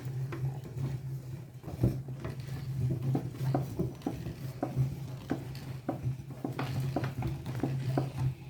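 Meat grinder running with a steady low hum while grinding Choco Pie cookies, with many irregular small clicks and crackles as the cookies are pushed through.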